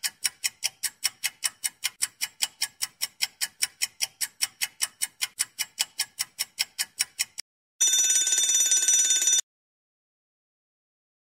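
Countdown timer sound effect: fast clock ticks, about five a second, then, about eight seconds in, a bell rings for about a second and a half to signal that time is up.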